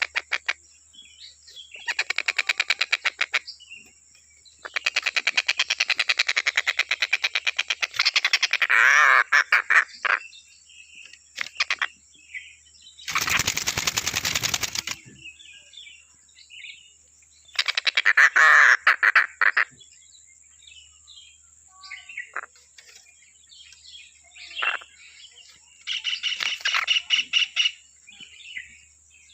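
Tengkek buto kingfisher calling in bursts of fast, harsh rattling trills, each lasting one to several seconds, with short scattered chirps between them. A loud, noisy burst of about two seconds comes near the middle. A faint steady high-pitched tone runs underneath.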